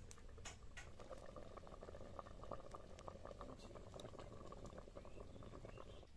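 Faint, rapid bubbling and popping of food cooking in a kadai over a wood fire.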